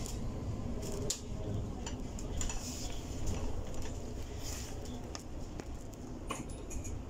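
Inside a moving Mercedes-Benz Citaro G C2 articulated bus: a steady low rumble of the running bus, with scattered light clicks and rattles.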